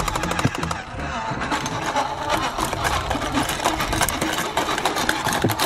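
Small battery motor and plastic gears of a Choken-Bako dog coin bank whirring and clattering as the toy dog works to eat a coin from its bowl.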